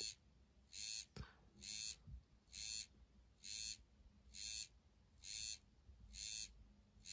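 Zmax sleep headband's vibration motor buzzing in short pulses, about one a second, nine in a row: a vibration stimulation running in step with its blinking light.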